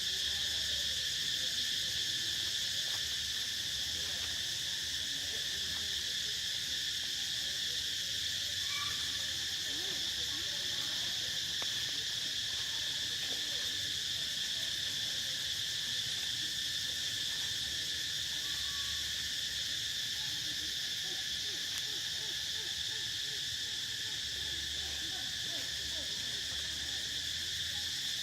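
Steady chorus of forest insects, a continuous shrill drone in several high pitches that holds at the same level throughout, with a few faint short chirps now and then.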